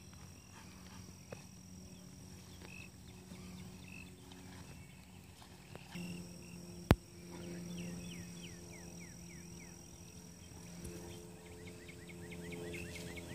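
Quiet outdoor ambience: a steady low hum with faint rapid chirping calls from small animals, and one sharp click about seven seconds in.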